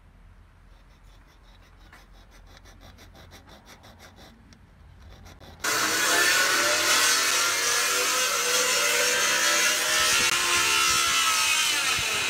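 Faint quick rasping strokes, about four a second, of a hand tool working a piece held in a bench vise. About six seconds in this gives way abruptly to the loud, steady noise of a woodworking power machine running as wooden boards are fed through it.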